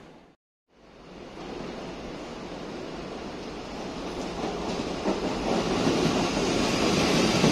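CPTM electric commuter train approaching along the platform, its running noise rising steadily as it draws nearer and loudest at the end. The sound cuts out completely for a moment just after the start.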